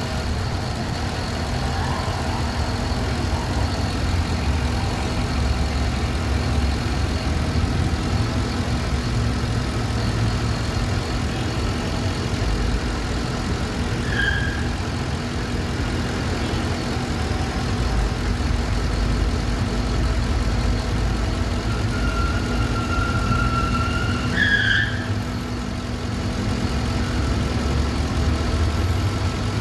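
Car engine idling steadily, a continuous low rumble. A few brief high squeaks come over it about halfway through and again near the end, one of them held for about two seconds.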